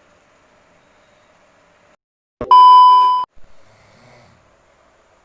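A loud electronic bleep: one steady high tone, under a second long, that starts and stops abruptly about two and a half seconds in. A man's faint snore follows about a second later.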